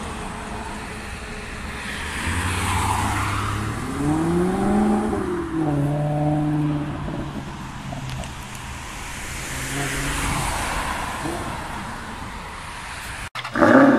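Car engine revving as it accelerates away, its note climbing and dropping back about four seconds in, then running steady for a couple of seconds, over passing street traffic.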